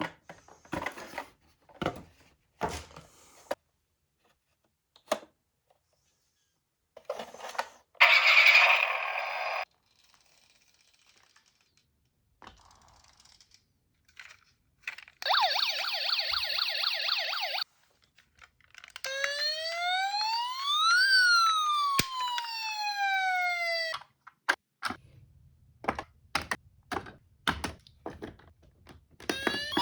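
Toy emergency-vehicle siren: a fast warbling siren for about two seconds, then a slower siren wailing up and down for about five seconds. Around it, light clicks and knocks of toy cars being handled, and a loud rasping burst about eight seconds in.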